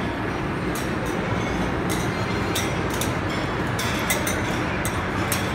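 Steady din of a busy buffet restaurant, with frequent sharp clinks of plates and utensils scattered through it.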